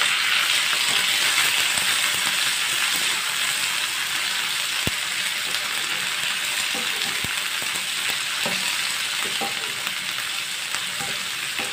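Sliced bitter gourd, onion, green chillies and tomato sizzling in hot oil in a non-stick wok while being stirred with a wooden spatula: a steady sizzle that eases slightly towards the end, with a couple of faint clicks.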